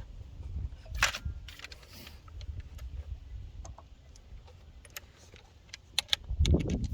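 Irregular metallic clinks and a knock of hand tools and bolts working in an engine bay, with low handling rumble.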